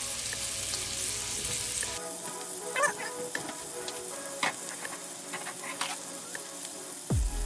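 Seasoned chicken sizzling in olive oil and butter in a cast-iron skillet: a steady hiss with scattered pops and crackles of spitting fat.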